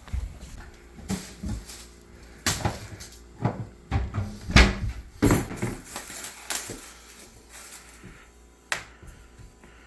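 Irregular knocks and clatters of objects being handled or banged about, about a dozen separate hits with the loudest near the middle.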